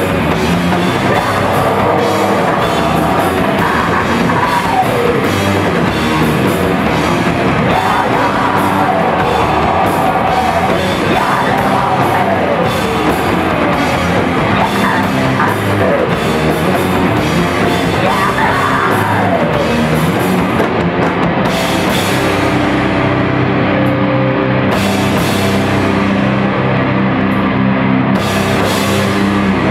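Crust punk band playing live: loud distorted guitars, bass and drums. About two-thirds of the way through, the fast drumming stops and a held chord rings under single cymbal crashes roughly three seconds apart.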